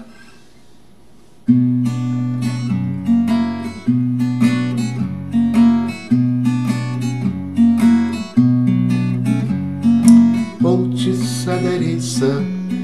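Acoustic guitar starting about a second and a half in and played in a steady strumming rhythm, with bass notes alternating under the chords: the instrumental introduction before the singing begins.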